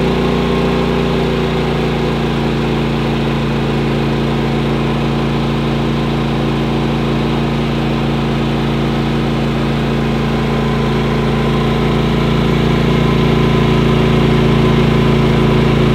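Predator 9500 inverter generator's engine running steadily at raised speed, carrying a heavy load of electric heaters including a 5,000-watt 240-volt heater. It grows slightly louder near the end.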